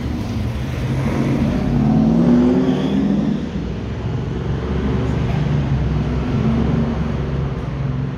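City street traffic: a steady low rumble, with a car engine accelerating past, rising in pitch and loudest about two seconds in, and another vehicle passing later.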